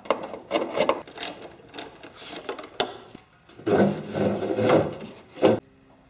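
Hex screwdriver working the screws of a gas water heater's sheet-metal burner access cover, with metal scraping and rattling. The rattling gets louder past the halfway point and ends in a sharp knock near the end.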